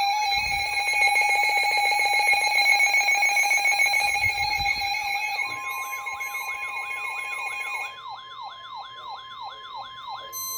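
Emergency Alert System attention signal: a steady two-tone alert tone that stops about three-quarters of the way in. About halfway through, a second alert joins it: a steady higher single tone and a rising siren-like warble repeating about three times a second.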